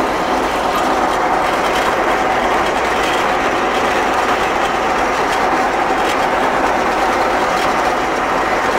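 Fortschritt E303 self-propelled mower running steadily, heard from inside its cab: a continuous engine and machinery noise with a rattling clatter.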